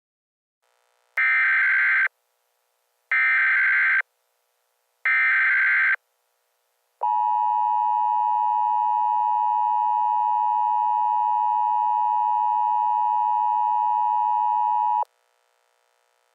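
Emergency Alert System header and attention tones: three buzzy one-second bursts of SAME digital data, then a steady attention tone held for about eight seconds that cuts off sharply, signalling the start of a new emergency alert.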